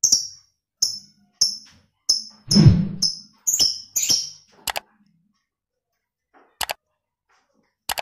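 A lovebird calling in a quick series of sharp, high-pitched chirps, about eight of them roughly half a second apart, then stopping, with two single short calls later on. A dull thump sounds about two and a half seconds in, the loudest moment.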